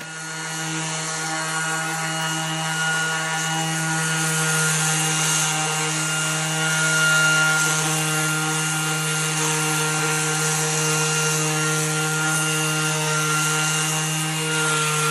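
Cordless random orbital sander with 220-grit paper running steadily against a metal surface: an even motor hum with a hiss of sanding.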